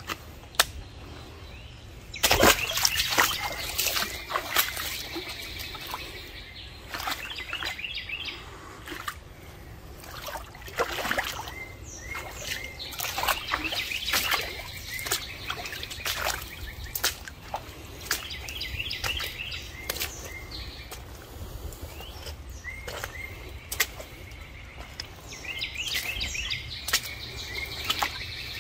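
Small birds chirping in quick repeated phrases, over irregular crunching, knocking and sloshing steps through a shallow creek, with a louder cluster of knocks and splashes about two seconds in.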